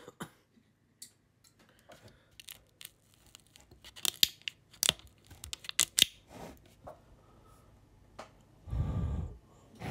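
Crinkling, crunching and clicking as a finger pushes on the crumpled paper dust cap and cone of a blown Sony speaker's woofer, loudest in the middle. A short low rumble follows near the end.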